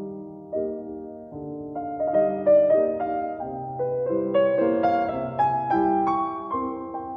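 Slow, gentle piano music: held notes and chords that build up and grow louder in the middle, then ease off toward the end.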